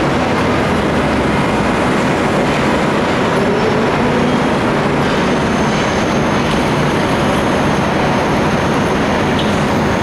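Loud steady rumble of a fire engine's diesel engine running at low speed amid dense street traffic noise, with a faint high steady whine joining about halfway through.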